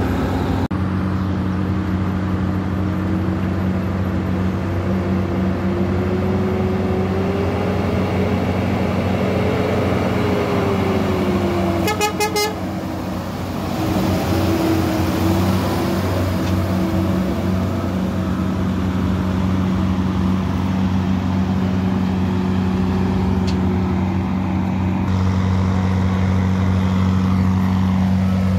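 Volvo VM 270 tandem-axle dump truck's diesel engine running steadily, its pitch slowly rising and falling. A brief horn toot comes about twelve seconds in.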